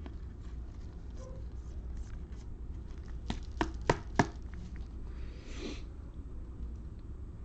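Trading cards being handled on a table: four sharp taps about a third of a second apart, then a brief rustle.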